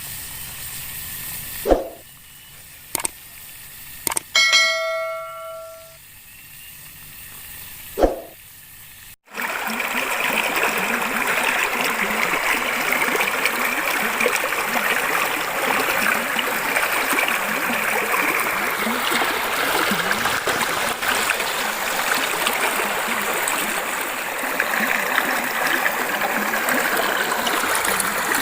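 A few whooshes and a bell-like chime ringing and fading, then, from about nine seconds in, a steady loud rush of running water from a stream.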